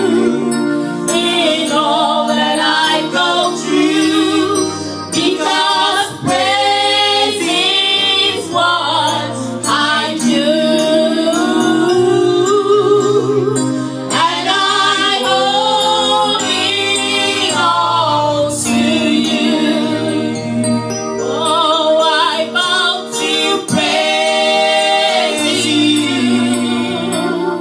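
A woman singing a gospel praise song into a handheld microphone, amplified, with vibrato on the long held notes, accompanied by sustained chords from an electronic keyboard (Yamaha MO8).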